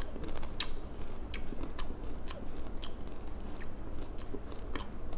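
A person chewing a crunchy salted egg yolk snack, with crisp crunches at an uneven pace of roughly two a second.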